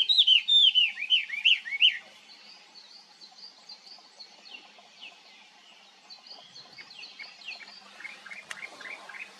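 Chinese hwamei singing: a loud, fast run of slurred, rising and falling whistled notes that breaks off about two seconds in. Fainter, higher chirps carry on after it.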